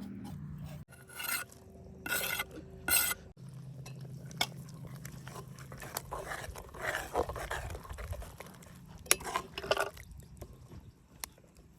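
A metal utensil stirring, scraping and clinking against a cooking pot in short bouts: several strokes in the first few seconds, then more near the end, over a steady low hum.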